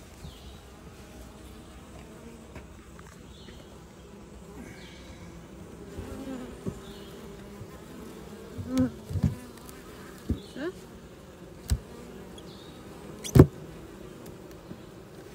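Honeybees buzzing steadily around an open hive. From about six seconds in there is a scattering of sharp knocks and clicks, the loudest near the end.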